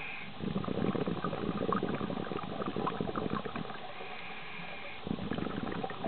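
Scuba regulator breathing heard underwater: a long exhale of bubbling lasting about four seconds, then a short hissing inhale, then bubbling again near the end.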